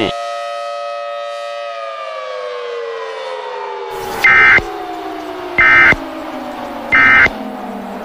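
Federal Signal Thunderbolt 1000 civil defence siren holding a steady multi-tone wail, then winding down with slowly falling pitch. Three short, loud buzzing data bursts about 1.3 seconds apart cut in over it, typical of the EAS end-of-message tones.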